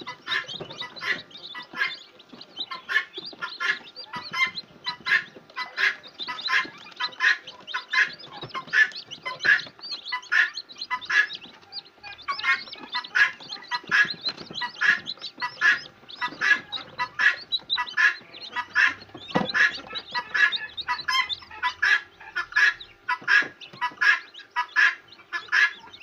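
A brood of newly hatched chicks, mostly Kadaknath, peeping loudly and without pause in an incubator tray. The short high peeps come two to three a second and overlap.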